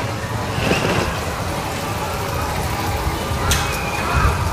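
Urban street traffic: a steady rumble of passing cars, with a short sharp sound about three and a half seconds in.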